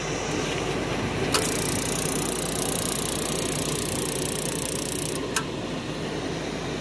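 The newly replaced inducer fan motor of an 80% ICP gas furnace running steadily with a whirring rush of air during the furnace's start-up sequence. From about a second and a half in to about five seconds in, a high hiss sounds over it, starting and ending with a click.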